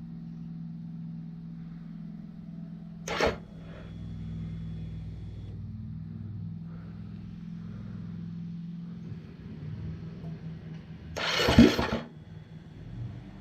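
Electric fuel pump of a KTM 350 EXC EFI humming steadily during a fuel-pressure test. About three seconds in there is a brief burst of hiss, and near the end a longer, louder one.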